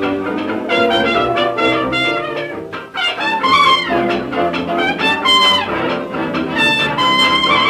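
Early-1930s hot jazz band playing from a 78 rpm record: a trumpet plays a high, sliding lead over trombones, saxophones and rhythm section. There is a brief dip about three seconds in, before the trumpet line climbs.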